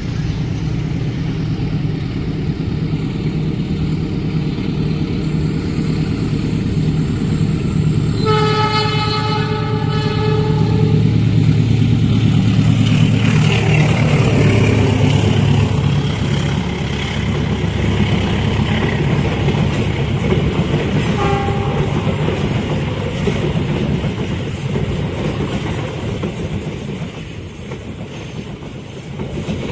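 Diesel locomotive-hauled train approaching and passing a level crossing: a steady low engine hum, a horn blast of about two seconds around eight seconds in, then the loudest rush of the train going by. A short second toot of the horn comes around twenty-one seconds in, and the sound fades away near the end.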